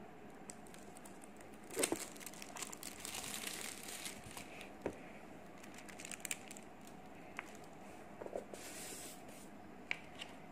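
Clear plastic protective wrap crinkling and tearing as it is peeled off a new tablet. There is a longer spell about two seconds in and a shorter one near the end, with a few small clicks and taps from handling in between.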